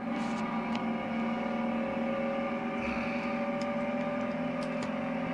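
Car engines running at a steady speed, heard from a film soundtrack through a television's speakers, with a few faint ticks over the top.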